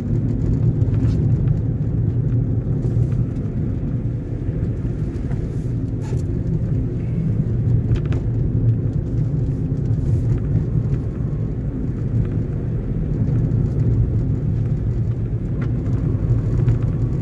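Steady low rumble of a car's engine and tyres on the road, heard from inside the cabin while driving, with a few faint ticks.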